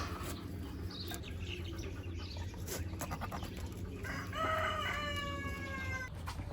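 A rooster crowing once, about four seconds in, in one call lasting about two seconds that dips in pitch at the end.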